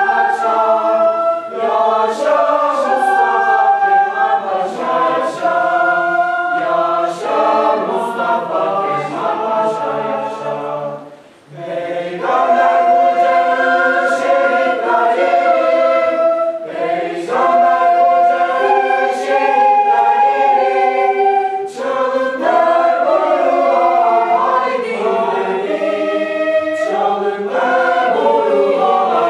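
School polyphonic choir singing a Turkish patriotic march in several voice parts, with a short break between phrases about eleven seconds in.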